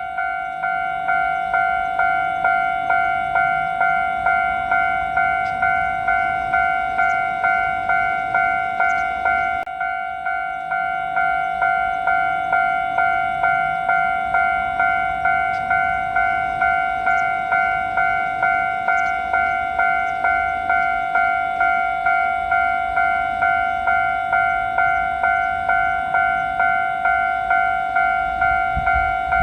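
Japanese railway level-crossing alarm bell ringing its repeated "kan-kan" strikes, a little under two a second, each ringing out before the next. A low rumble starts to build near the end.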